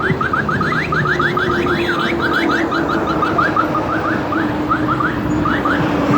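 Electronic alarm sounding a rapid series of short rising chirps that come quickly at first and then space out, over a steady low engine hum and traffic noise.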